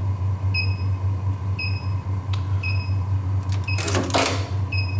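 A steady low electrical hum with a short, high two-tone electronic beep repeating about once a second, and a brief hiss about four seconds in.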